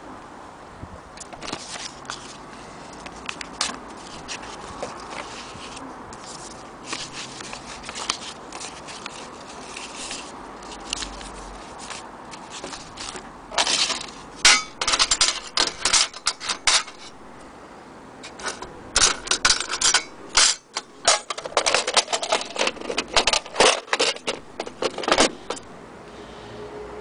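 Small metal sewing-machine attachments clinking and rattling in their tin as they are handled, with scattered light clicks at first and then two spells of quick clinks, the second longer.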